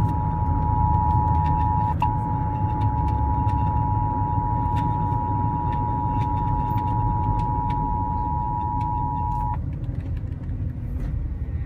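Emergency Alert System attention signal received on FM radio: a steady two-note alarm tone that breaks for an instant about two seconds in and cuts off about two seconds before the end, over a steady low rumble.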